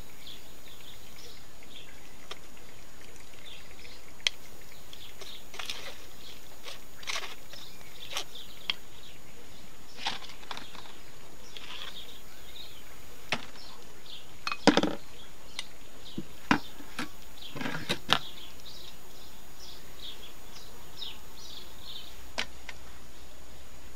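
Birds chirping over a steady hiss, with scattered sharp clicks and knocks; the loudest knocks come in a cluster about 15 to 18 seconds in.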